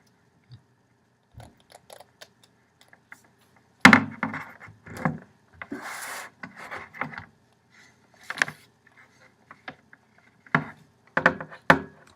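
Handling noise from a new iPad being picked up and moved on a desk: scattered clicks, knocks and rubbing, with a sharper knock about four seconds in.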